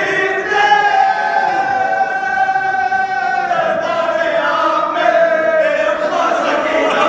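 Several men's voices chanting an Urdu marsiya (mourning elegy) together, unaccompanied, in long drawn-out notes.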